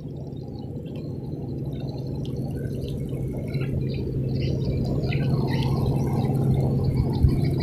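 Spinning reel cranked close by as line is retrieved: a low, steady whirring that grows slowly louder, with small birds chirping in the background.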